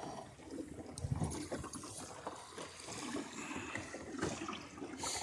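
Water gurgling and trickling along the hull of a small sailboat running off the wind, with a few small knocks.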